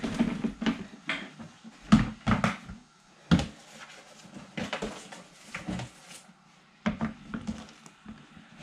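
A blue plastic storage tub knocking and clunking as it is handled over a fabric worm bin while worm castings are emptied from it. The knocks are short and irregular, with quiet gaps between them.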